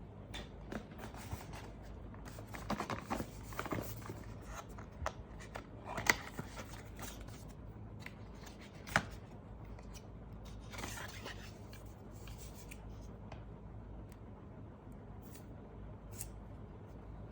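Packaging being handled and opened by hand: rustling and scraping with scattered clicks, busiest a few seconds in, with two sharp clicks, the loudest about six and nine seconds in.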